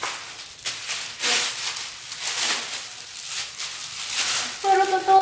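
Plastic packaging wrap crinkling and rustling in uneven surges as it is pulled off a vacuum cleaner's wand. A voice comes in near the end.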